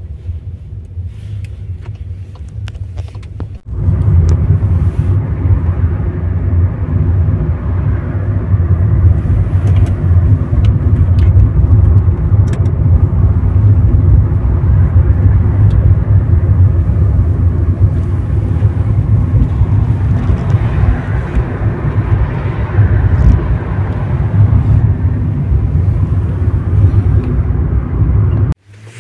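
Car cabin noise on the move: a steady low rumble of engine and tyres on the road. It is quieter for the first few seconds, then much louder from about four seconds in.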